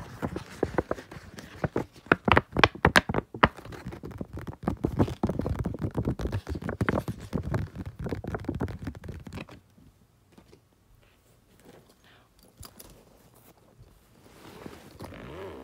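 Fingers scratching and tapping right on the recording device's microphone in close, irregular taps and scrapes, loudest about two to three seconds in. The sounds stop about nine and a half seconds in, leaving only faint rustling.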